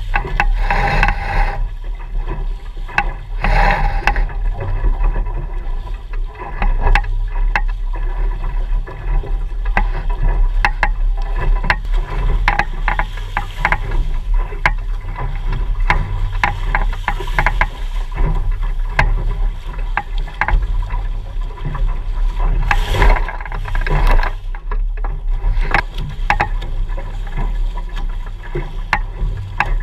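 Water rushing and slapping along a Mirror dinghy's hull as it sails at speed, with frequent splashes and knocks. Wind rumbles heavily on the boat-mounted camera's microphone.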